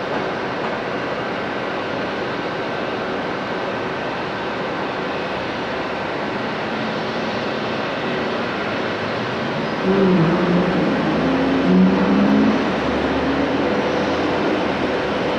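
Airbus A340 airliner's four jet engines running at low power as it taxis, a steady rushing noise with a faint steady whine over it. From about ten seconds in, a louder, brief wavering sound rises over it for a couple of seconds.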